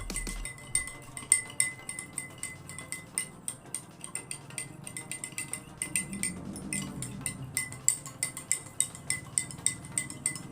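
A spoon stirring salt into a little water in a drinking glass, clinking against the glass rapidly and over and over as the salt dissolves.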